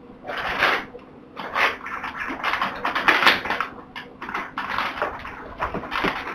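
Crinkling and rustling of a plastic food pouch being handled, a quick irregular series of crackly bursts.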